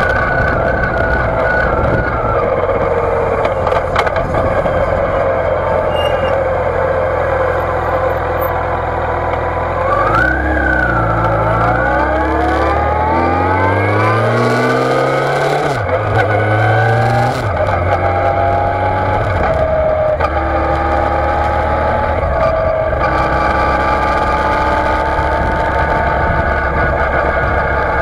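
2006 Yamaha FJR1300's inline-four engine running under way, muffled by the closed waterproof camera case, with wind and road noise. About ten seconds in the engine pitch climbs for several seconds as the bike accelerates, drops suddenly, then settles to a steady cruise.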